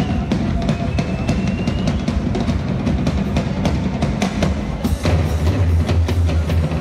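Drum kit played solo: dense rolls on the toms and bass drum with sharp snare and cymbal hits. About five seconds in, a steady, heavy low drum roll takes over underneath the hits.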